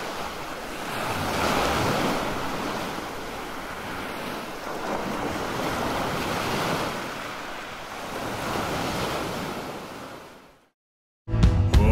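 Sea waves breaking and washing up on a sandy beach, swelling and ebbing three times, with some wind. The surf fades out about ten seconds in, and music begins just before the end.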